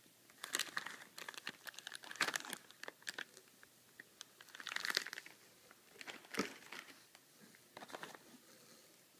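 Plastic bags and wrapping around 3D-printer kit parts crinkling as they are handled, in irregular crackly bursts, with a single knock about six and a half seconds in.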